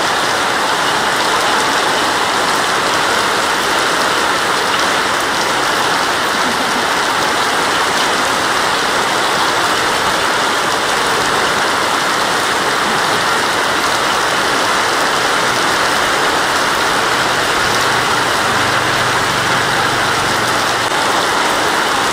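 Heavy rain pouring steadily onto a paved road, an even, unbroken hiss of a downpour.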